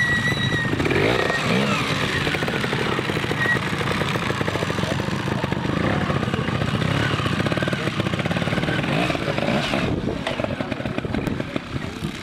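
Trials motorcycle engine being ridden through an obstacle section over rocks and dirt banks, revving up and dropping back again and again in short blips.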